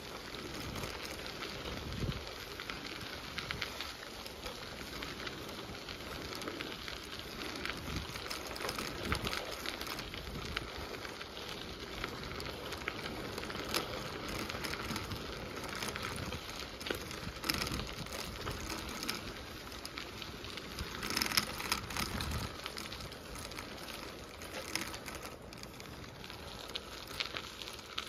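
Steady crackling, crunching noise of movement along a gravel path, with scattered clicks and occasional low bumps.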